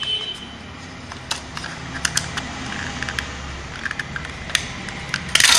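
Small plastic clicks and taps from handling a pocket router/power bank's plastic casing while its back cover is worked off, with a louder scraping rustle near the end.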